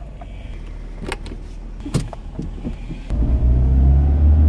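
Small car's engine idling just after starting, with a couple of sharp clicks; about three seconds in it revs up louder with a rising pitch as the car pulls away.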